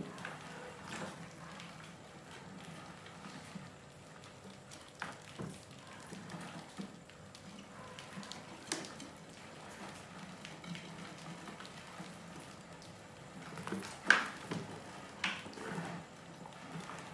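Many mice scurrying and scrabbling over a plastic bucket rim, wooden ramps and a paper-covered tilting lid: an irregular patter of small feet and scratching with scattered sharp clicks, the loudest about fourteen seconds in.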